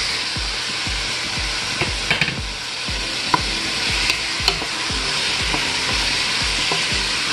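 Shrimp and snap peas sizzling in a stainless steel pot while being stirred with a spoon: a steady frying hiss, with soft knocks and a few sharp clicks from the spoon against the pot.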